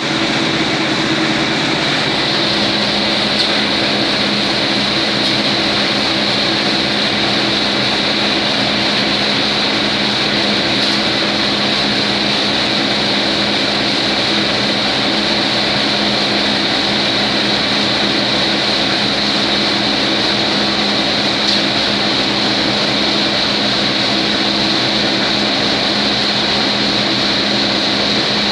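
Siberian pine cone processing machine running steadily, a mechanical drone with a steady hum and a high whine, with a few faint brief clicks.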